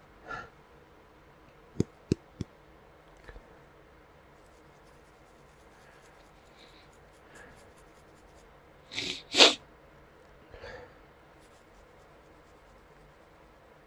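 A man's single loud sneeze about nine and a half seconds in, set off by spice (Creole seasoning), with a quick sharp breath just before it and a softer breath after. Three small sharp clicks about two seconds in.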